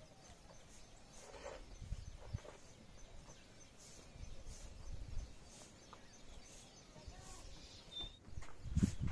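Farmyard ambience: irregular low rumbles and knocks from livestock and handling around the shed, with a short bird chirp near the end.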